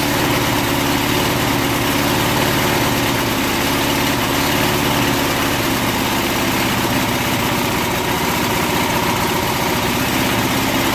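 Small single-cylinder four-stroke lawn mower engine running steadily, its crankcase filled with car wax instead of motor oil.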